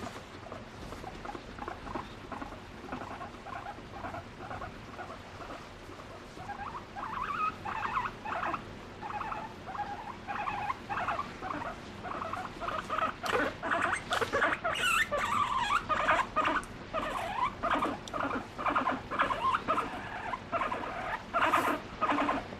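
Abyssinian guinea pig vocalising while her head is stroked, in a constant run of short, quick calls. The calls are soft at first and grow louder and busier from about seven seconds in.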